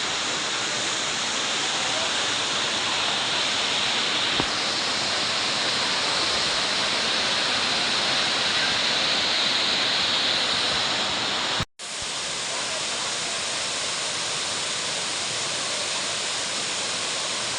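Waterfall: falling water rushing steadily. The sound cuts out for a split second about twelve seconds in, then resumes a little quieter.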